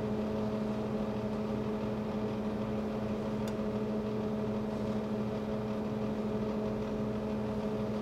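Steady machine hum: a low drone with a few fainter higher tones held level throughout, and a single faint tick about three and a half seconds in.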